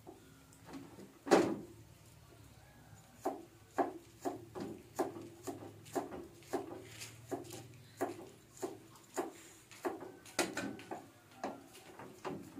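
Steel cleaver chopping food on a thick round wooden chopping block. One hard chop comes about a second in, then steady chopping at about two strokes a second from about three seconds in.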